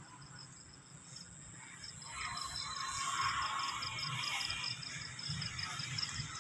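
High, even chirping of a cricket, about four chirps a second. From about two seconds in, a broad rushing noise swells up under it and becomes the loudest sound.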